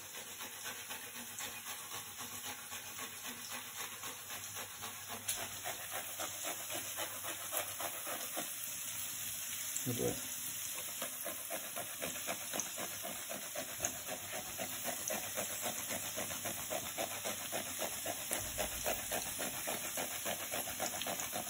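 Red chili pepper rubbed in quick, repeated strokes across a flat handheld metal grater, over a frying pan of bacon, mushrooms and peas sizzling steadily.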